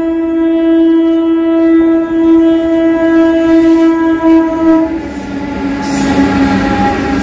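WAG-7 electric locomotive's horn sounding one long steady note that stops about five seconds in, after which the rumble and clatter of the train's wheels on the rails takes over as the locomotive passes close by.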